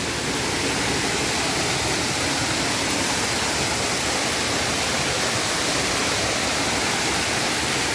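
Steady rushing of falling water from a nearby waterfall, an even hiss with no breaks.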